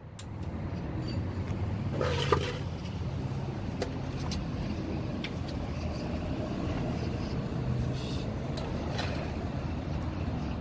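Steady low engine hum, with a few light metallic clicks and a knock about two seconds in.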